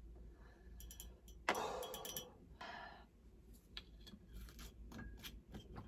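Faint clicks and light knocks of small objects being handled, with two short hisses about a second and a half and two and a half seconds in.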